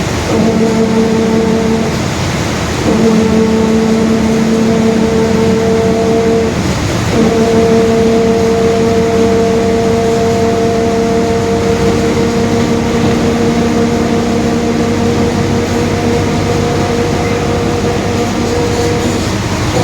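Mercedes-Benz OF-1721 Bluetec 5 bus under way, its differential droning: a steady pitched whine over the engine and road noise. It fades out briefly about two seconds in and again about six and a half seconds in, then comes back.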